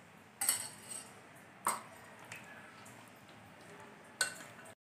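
A metal spoon clinking against a glass mixing bowl a few times, short light clinks a second or more apart, as chicken is mixed into a yogurt and oil marinade.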